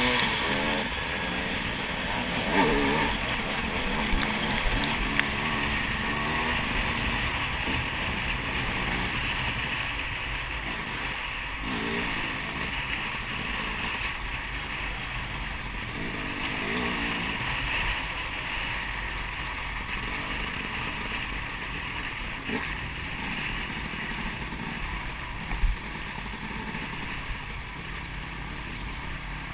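Dirt bike engine running as it rides along a trail, its pitch rising and falling with the throttle, over a steady rushing noise.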